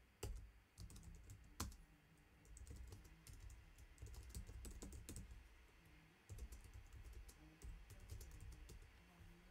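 Faint computer keyboard typing: quick, irregular key clicks.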